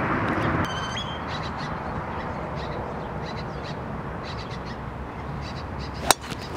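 A golf driver strikes a ball off the tee once, a sharp crack about six seconds in and the loudest sound here. Under it runs steady outdoor noise with birds chirping now and then.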